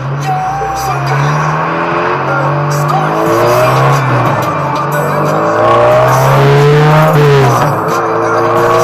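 Honda Civic Type R EP3's four-cylinder engine with a loud DC Sports aftermarket exhaust, accelerating hard. Its pitch climbs and drops back several times as it changes up through the gears, then it passes by near the end.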